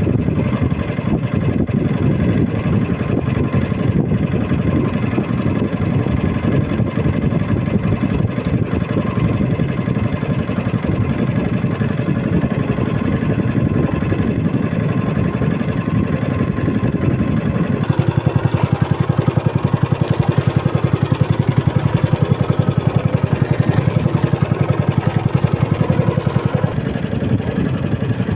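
A small fishing boat's motor running steadily. About two-thirds of the way in it gets louder with a more even throb, then eases back near the end.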